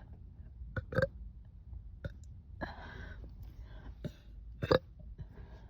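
Short burps from a woman burping on command, drawing on the gas from carbonated water she has drunk: two brief loud ones, about a second in and near the end, with a softer breathy sound between them.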